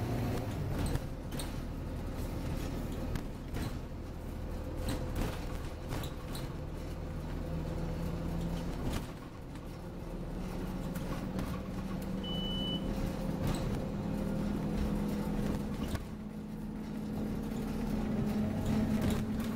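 Scania OmniCity double-decker bus running on the road, heard from the lower deck: steady diesel engine and drivetrain drone with road rumble and interior rattles and knocks. In the second half the engine note climbs steadily as the bus accelerates, and a single short high beep sounds about twelve seconds in.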